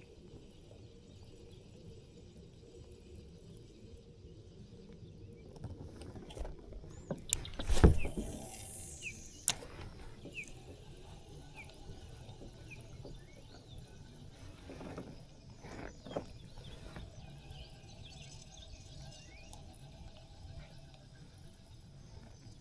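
A fishing cast from a kayak: a sudden whoosh with a high whine falling in pitch about eight seconds in, then a sharp click about a second and a half later. Quieter handling knocks and faint short chirps follow.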